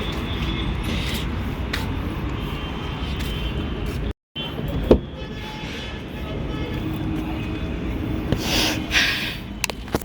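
Car on the move: a steady low road and engine rumble, broken by an edit about four seconds in, with a sharp knock about a second later and a short hiss near the end.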